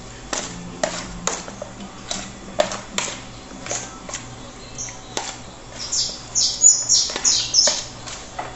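Scattered sharp taps and clicks of kitchen utensils while seasoning chicken, with a quick run of high chirps about six seconds in.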